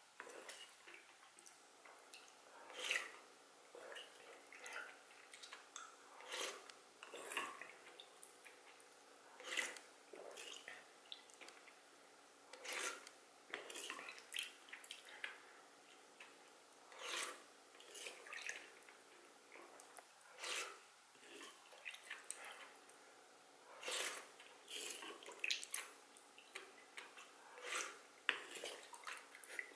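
Wooden spoon dipping and scraping in an earthenware pot of soup broth, with a sip of broth every few seconds, in a steady, unhurried rhythm of short wet sounds.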